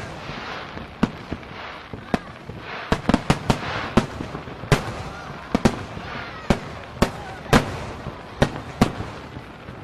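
Fireworks going off: a steady run of sharp bangs at irregular intervals, roughly one or two a second, some louder than others, over a constant background hiss.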